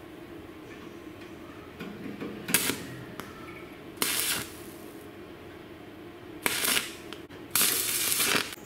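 Stick (arc) welder crackling and hissing in four short bursts as the electrode strikes an arc on the steel barrel. The last burst, near the end, is the longest, at just under a second.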